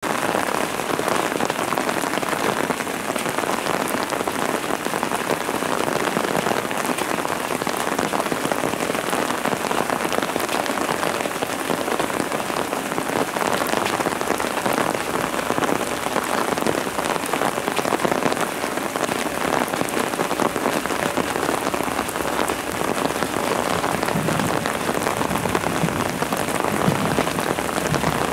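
Steady rain falling and pattering on the station platform and track. In the last few seconds a low rumble rises under it as a 2000 series diesel railcar draws near.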